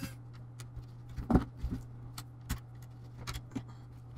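Light, scattered clicks and taps of hand tools and plastic laptop parts being handled during disassembly, the loudest about a second and a half in, over a steady low hum.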